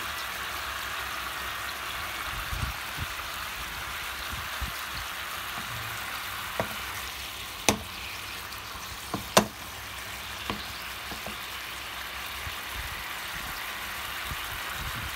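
Pork shoulder steaks sizzling steadily in a pan of their own juices with oil and butter, the water they released boiling off before they brown. A few sharp pops break through, the two loudest a little past the middle.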